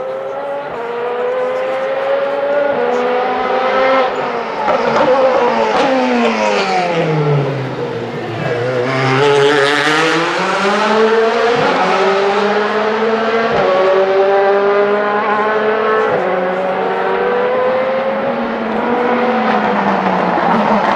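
DTM race cars' V8 engines at high revs, accelerating and shifting up through the gears. About midway, one engine's pitch falls steadily as it slows, then climbs again as it accelerates away.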